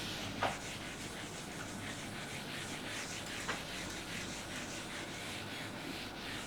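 Faint scratching of writing strokes on a board, with two light taps, over a steady room hiss.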